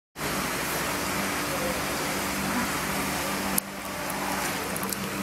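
Steady low motor hum over a rushing noise of moving water, with a click and a short drop in level about three and a half seconds in.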